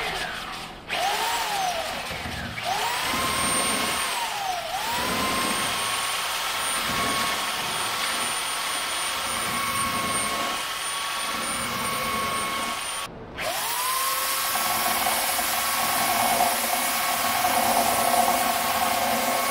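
Corded belt sander running against the plywood sheeting edge to sand it flush. The motor's whine sags in pitch each time it is pressed into the work and then recovers. It stops briefly about thirteen seconds in and spins up again.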